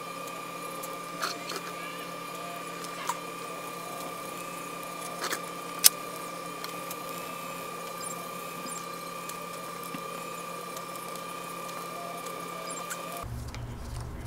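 Small clicks and scrapes of a metal pick on the iPhone XS logic boards and aluminium plate while thermal paste is cleaned off, the sharpest click about six seconds in. Under them runs a steady high-pitched electrical whine from bench equipment.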